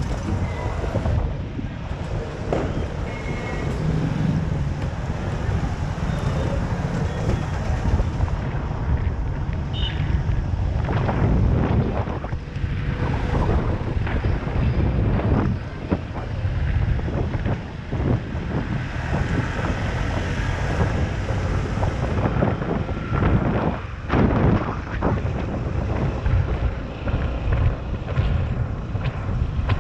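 Wind buffeting the microphone of a camera held out from a moving scooter, a dense low rumble mixed with the scooter's running and passing road traffic.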